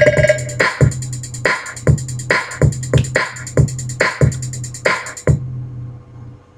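Hip-hop beat with drum-machine hits over a steady bass note, played through Panasonic Thrusters loudspeakers; the music stops suddenly about five seconds in.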